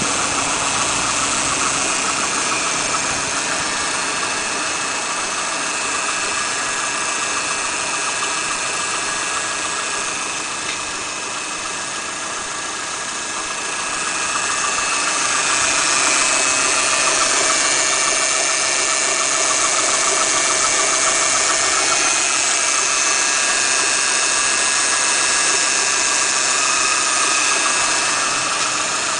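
Mitsubishi Lancer IX running with a steady hum from its hydraulic power steering, a sign of a fault in the power steering pump or steering rack. The hum grows louder about halfway through and stays there.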